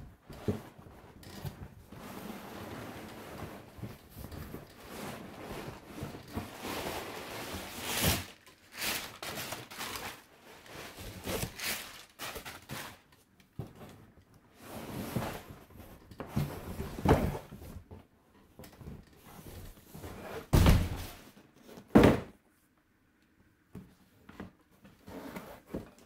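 Handling noises: rustling followed by scattered knocks and thumps as things are moved about and set down, with two loud thumps near the end.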